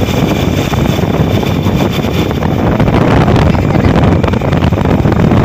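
Wind buffeting the microphone on a moving motorbike, a loud steady rumble of rushing air and road noise.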